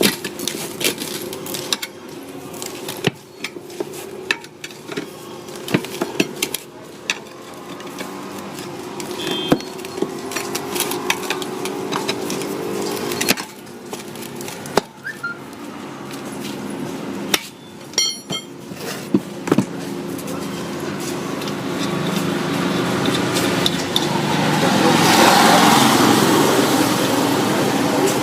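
Repeated sharp metal clicks and knocks from hand tools working on a motorcycle wheel and tyre, over a steady engine hum. A passing vehicle grows louder toward the end.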